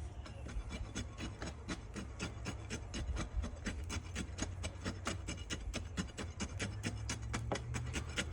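A metal rod jabbed repeatedly into dry Quikrete concrete mix around a post in its hole, a fast even run of gritty scraping strokes about five a second, working the dry mix down to settle it around the post.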